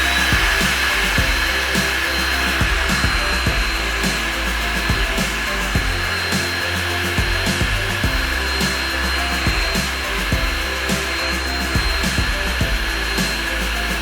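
Background music with a steady beat and low bass notes, over a steady blowing hiss with a thin high whine, like a small blower motor running.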